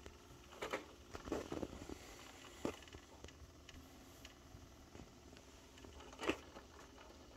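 Faint rustles and light clicks as a kitten moves about on bedding in a wire crate: a short cluster about a second in, another click a little later, and a sharper click about six seconds in.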